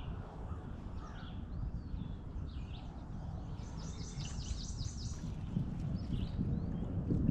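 Wild songbirds calling: scattered short high chirps, with a quick series of about ten repeated high notes from about three and a half seconds in, over a steady low background rumble.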